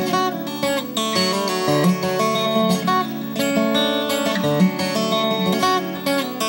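Acoustic guitar played fingerstyle: a solo instrumental with low bass notes picked under a higher melody, the notes ringing over one another.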